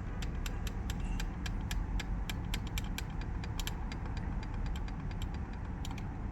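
A steady low rumble with an irregular run of light, sharp clicks, thickest in the first three seconds and sparser after.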